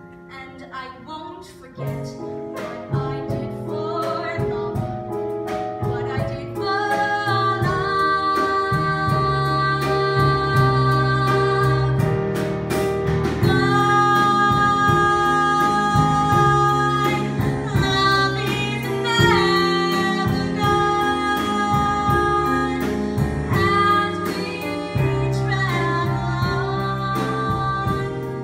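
A woman singing a slow musical-theatre ballad with instrumental accompaniment, holding long notes with vibrato. It starts softly and swells in loudness from about two seconds in.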